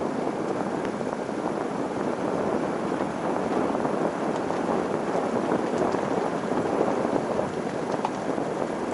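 Steady road noise of a vehicle driving: tyres running over an unpaved gravel road, an even rushing hiss with occasional small ticks.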